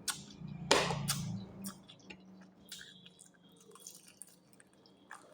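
Close-up eating sounds: wet chewing and lip smacks as scattered small clicks, with one louder, longer mouth noise just under a second in.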